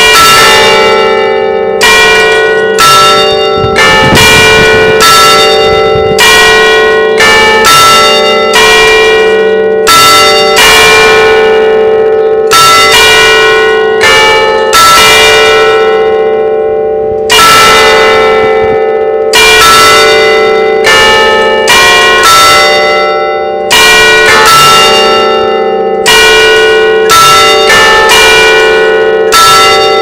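Church bells in an open steel bell frame ringing a call to prayer: struck one after another at roughly one strike a second, unevenly spaced, each bell at its own pitch and ringing on into the next.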